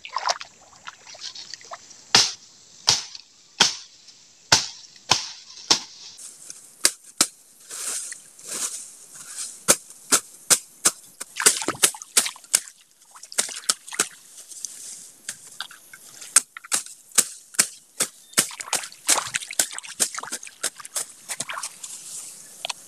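A long-handled cutting tool chopping into weeds, ferns and bank soil in repeated sharp strikes. The strikes come about one every 0.7 seconds at first, then faster and more irregular.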